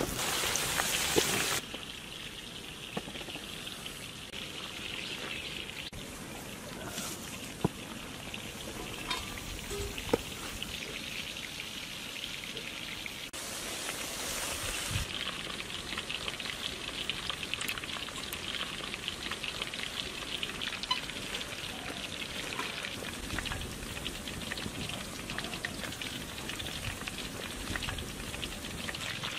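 Chicken pieces deep-frying in a large iron kadai of hot oil, sizzling and crackling steadily. The sizzling surges louder in the first second or so and again around fourteen seconds in, with a few sharp clicks along the way.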